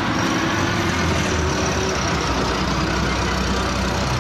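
Preet combine harvester's diesel engine running steadily, a deep low hum under a broad mechanical din.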